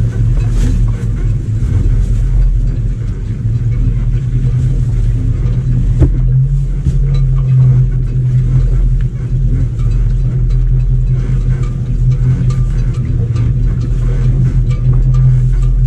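Electric boat motor running steadily in forward, driven by a newly fitted EZKontrol controller under test: a loud, steady low hum, with a single click about six seconds in.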